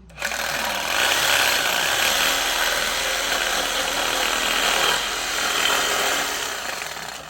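A handheld power tool runs hard for about seven seconds on the engine's stuck oil pump, starting abruptly and easing off near the end.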